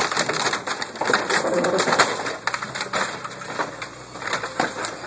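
Scrap car's engine being wrenched out of its bay by a loader's hydraulic grapple: a dense run of metal cracking, snapping and tearing as mounts, wires and hoses give way, over the steady low running of the loader's engine.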